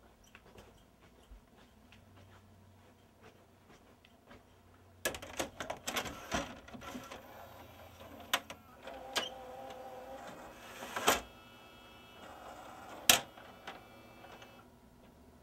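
RCA SelectaVision CED videodisc player loading a disc caddy: faint handling clicks, then from about five seconds in a run of sharp clacks and clunks with the loading mechanism whirring. Two loud clacks come about eleven and thirteen seconds in, and the mechanism stops shortly before the end.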